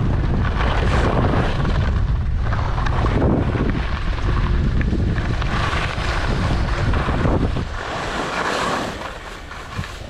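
Wind rushing over a body-worn camera's microphone while skiing downhill, mixed with skis scraping over groomed snow. The noise eases off in the last couple of seconds as the skier slows.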